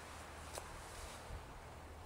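Faint rustling of a DD Frontline camping hammock's fabric as a person settles into it, over a low steady rumble, with one sharp click about half a second in.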